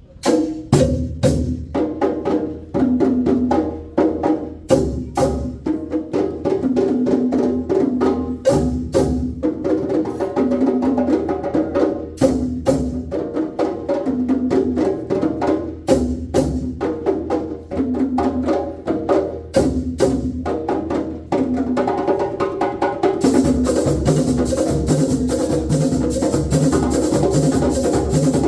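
Live drum ensemble playing: sharp, rapid hand-drum strokes over lower pitched drum tones in an interlocking rhythm. About three-quarters of the way through, the playing grows denser and fuller.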